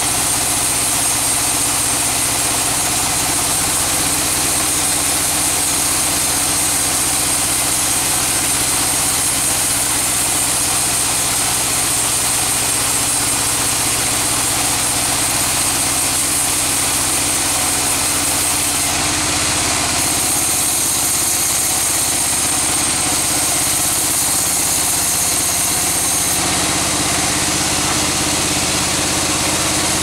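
Large log band saw running steadily as a big log is fed through it, a continuous machine hum with a hissing cutting noise over it. The tone shifts slightly twice in the second half.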